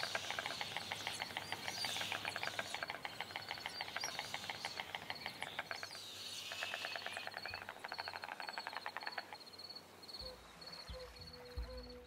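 White storks clattering their bills: three long runs of fast, even wooden rattling, the last stopping about three quarters of the way through. A small bird calls in quick, high, repeated chirps behind it, and a low musical note comes in near the end.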